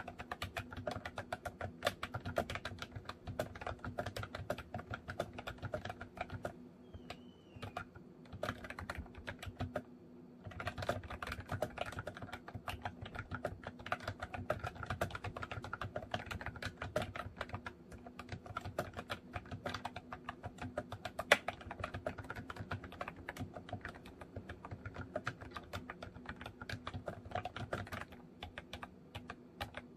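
Continuous fast typing on a MOFii Retro Style Candy keyboard with round retro keycaps, a dense run of key clicks with two brief pauses about seven and ten seconds in.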